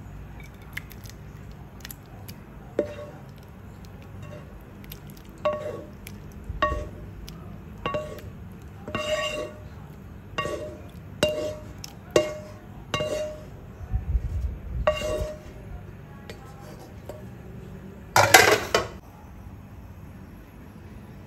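A serving utensil clinking repeatedly against a ceramic bowl while the shrimp stir-fry is spooned into it: about a dozen ringing clinks roughly a second apart, then a louder scraping clatter near the end.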